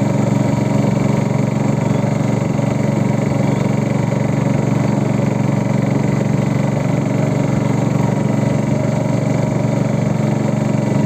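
Boat engine running steadily at constant speed, a continuous even drone with no change in pitch.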